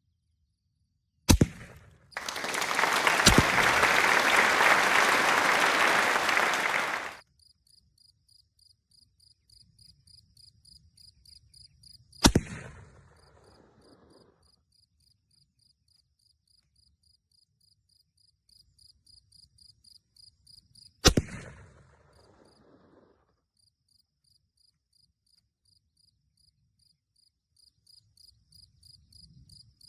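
7mm-08 deer rifle firing three single shots about nine to ten seconds apart, each a sharp crack followed by a rolling echo. Between the shots, insects chirp in a fast, even pulse. About two seconds in, a loud rushing noise starts and stops abruptly after about five seconds.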